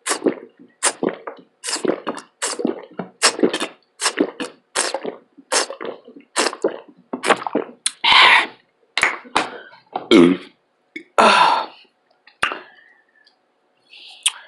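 Close-miked wet chewing and lip smacking of vegetables, about two smacks a second. Past the middle come three longer, louder mouth or throat sounds, one with a falling pitch, before it trails off.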